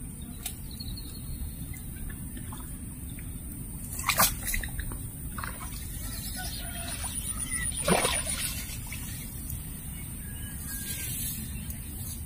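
Outdoor ambience over floodwater, with birds calling and a steady high buzz, broken by two sharp knocks about four and eight seconds in as a fishing rod and lure are cast.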